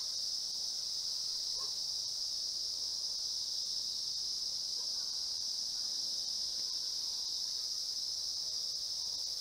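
Steady, unbroken high-pitched drone of an insect chorus in woodland.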